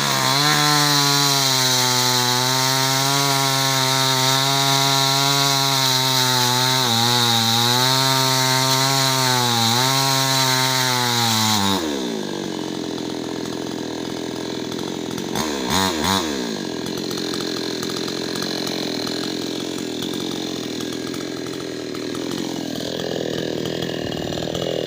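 A two-stroke chainsaw runs at high revs while cutting wood, its pitch sagging briefly several times as the chain bites. About twelve seconds in the throttle is released and the engine winds down. A short rev follows a few seconds later.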